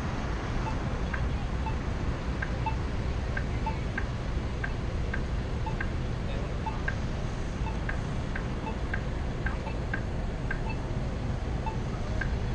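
Short electronic beeps at two pitches repeating about twice a second from a crosswalk's accessible pedestrian signal, over a steady low rumble of wind and traffic.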